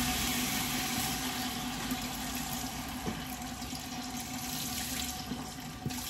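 Chicken broth poured from a carton into a cooking pot, a steady stream of liquid splashing in.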